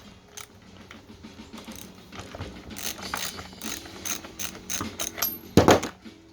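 Ratchet wrench clicking in quick repeated strokes as the spark plug is worked loose from a Stihl MS 180 chainsaw, then one louder clunk near the end.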